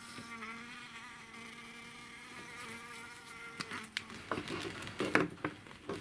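A honeybee buzzing in one steady tone, which stops about three and a half seconds in. Then come several sharp clicks and knocks of hands handling the plastic queen-marking tube and marker, the loudest about five seconds in.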